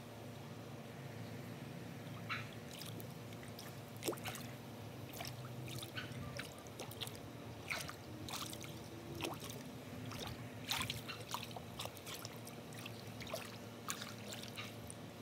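Pool water splashing and sloshing in small, irregular splashes as a hand works a PVC sprayer assembly onto a return port under the water, over a low, steady hum.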